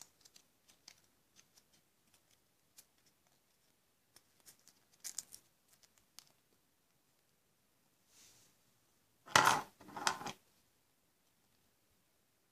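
Small plastic Kinder Surprise toy pieces clicking and tapping as they are handled and fitted together, with two louder scraping noises of about half a second each, close together after about nine seconds.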